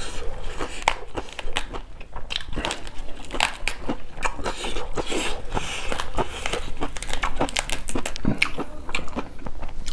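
Crisp fresh leafy greens being torn and crumpled by hand close to the microphone: a steady, irregular run of sharp crackles and snaps.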